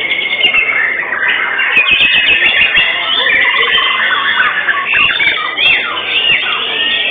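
Many caged white-rumped shamas (murai batu) singing together in contest. It is a dense, steady tangle of overlapping whistles, trills and chatter.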